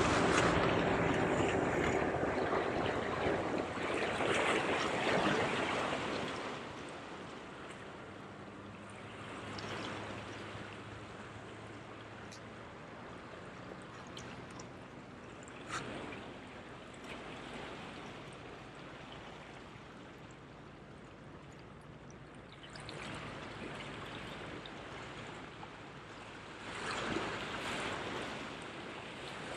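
Small waves washing and splashing against the boulders of a rock jetty, swelling and fading several times, loudest in the first few seconds.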